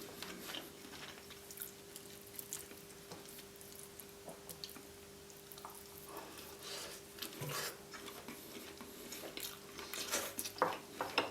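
Close-miked eating of roast chicken: wet chewing and mouth sounds with scattered light clicks, busier near the end, over a faint steady hum.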